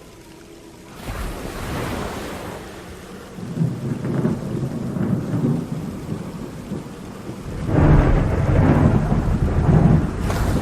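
Thunder rolling in deep, rumbling peals over steady rain: a faint roll about a second in, a stronger one around four seconds, and the loudest, longest peal from about eight seconds to near the end.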